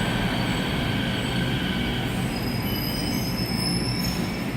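Metro train pulling into the station with a steady rumble. A thin, high wheel squeal joins in about halfway through.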